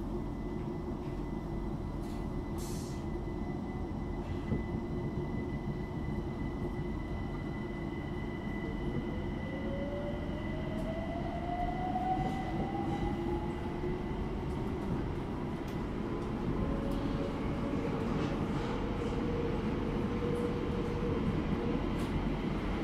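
Class 378 Electrostar electric train heard from inside, with a steady rumble. About eight seconds in, a traction-motor whine rises in pitch as the train gathers speed, and a second motor tone joins later.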